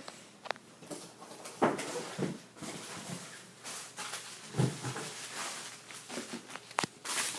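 Scattered clicks, knocks and rustling of objects being handled and moved about, with a brief louder rustle near the end.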